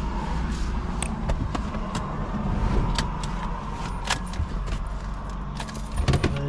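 Car running, with a steady low engine and road hum and a faint steady tone above it. Scattered light clicks and rattles throughout.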